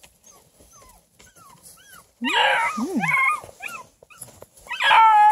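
Six-week-old beagle puppies whimpering and yelping. Faint short squeaks come first, then from about two seconds in louder yelps and whines, with the loudest, a held high whine, near the end.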